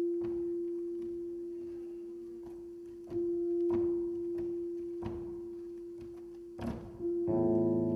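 Live guitar sounding a single pure, sustained note that is struck again every three to four seconds and fades between strikes. Dull thumps of bare feet landing and stepping on a wooden stage come in between. Near the end a full guitar chord rings out.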